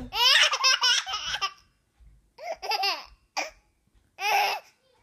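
A small child laughing hard in high-pitched bursts: one long peal at the start, then three shorter ones over the next few seconds, set off by fake sneezes.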